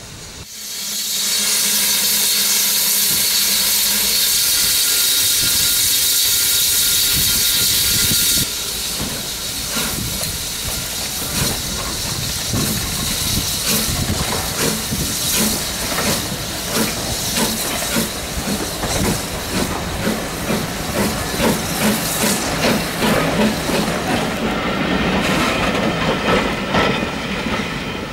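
BR Class 9F 2-10-0 steam locomotive No. 92203 Black Prince: a loud, steady hiss of steam that cuts off suddenly about eight seconds in. Then the engine gets under way with an even rhythm of exhaust beats and the hiss of steam escaping low down at the cylinders, fading near the end.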